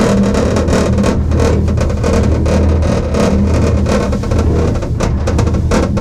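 Cabin of a Gerhard Müller four-seat monocable gondola lift running along the haul rope, heard from inside: a steady low hum with irregular rattling and clicking.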